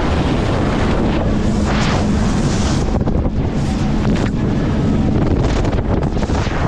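Jet boat running at speed with heavy wind buffeting the microphone, a steady low engine drone underneath and surges of rushing spray off the hull.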